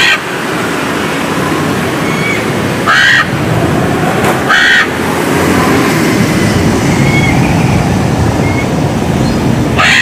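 Macaw giving short, loud, harsh squawks: one at the start, two about 3 and 4.5 seconds in, and another at the end, over a steady background rush of noise.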